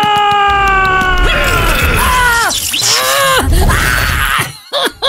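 A cartoon character's voice crying out in long pitched wails that bend and fall in pitch, with low thuds underneath, cutting off briefly near the end.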